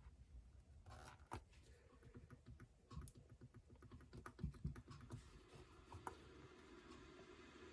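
Faint, quick run of small plastic clicks and taps: buttons being pressed on a Sangean CL-100 clock radio while its presets are programmed.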